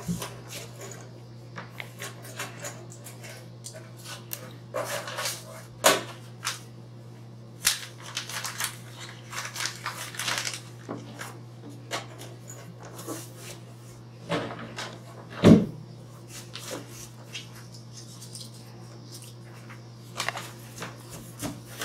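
Someone rummaging through things by hand: scattered small knocks, clicks and rustles as objects are picked up and put down, with one louder thump about fifteen seconds in, over a steady low hum.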